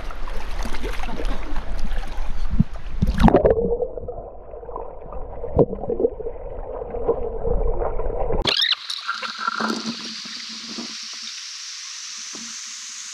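River water splashing as a person dunks himself. About three and a half seconds in, the sound turns muffled and gurgling, as if heard from under the water. At about eight and a half seconds it cuts abruptly to a quieter steady hiss.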